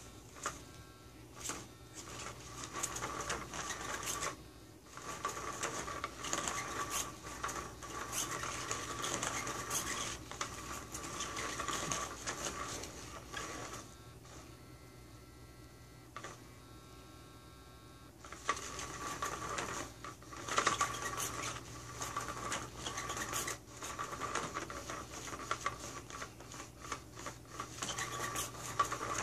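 Motor of a Hot Pursuit concealed-motion cat toy whirring as its wand sweeps around under the nylon cover, with scratchy swishing against the fabric. It cuts out briefly about four seconds in and again for about four seconds in the middle, then starts up again.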